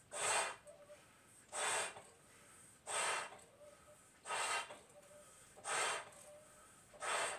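Loud rhythmic breaths, six in all, about one every second and a half, from a person blowing up two Bobo balloons at once by mouth through a two-way connector.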